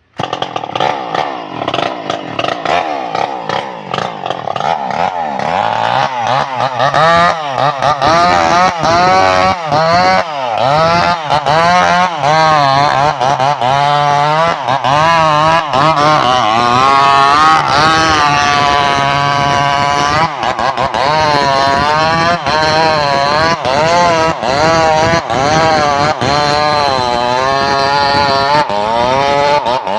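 Stihl MS 381 two-stroke chainsaw starting up suddenly and running hard, its engine pitch rising and falling over and over as it is revved and pulled down under load in the wood.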